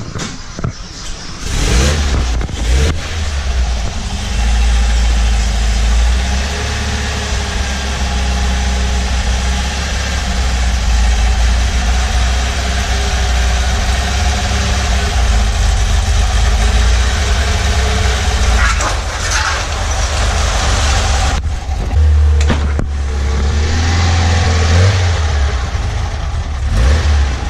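A VW bus engine starting and then running steadily with a low rumble, with a brief break about 21 seconds in. The carburetor needs a full rebuild, and a failing accelerator pump starves the engine of fuel so that it no longer idles.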